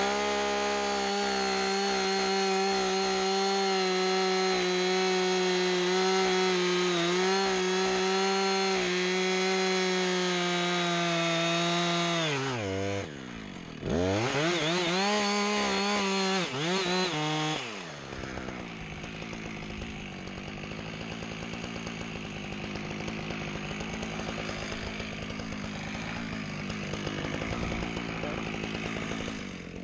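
Two-stroke chainsaw held at full throttle for about twelve seconds, cutting into a spruce trunk as part of a felling cut. Near the middle the throttle is let off and the saw is revved up and down a few times, then from about two-thirds of the way through it idles.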